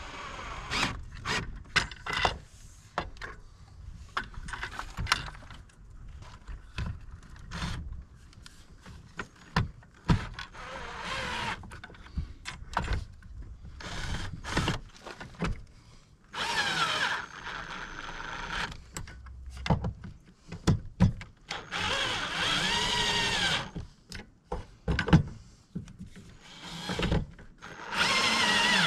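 A power drill driving the mounting screws of a camper's door assist rail in several short runs, its motor whine rising and falling in pitch, with clicks and knocks of handling between the runs.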